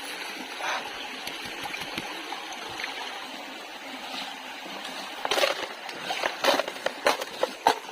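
Water sloshing and splashing in a gold pan worked in a stream: a steady run of flowing water, then a quick, irregular series of splashes from about five seconds in.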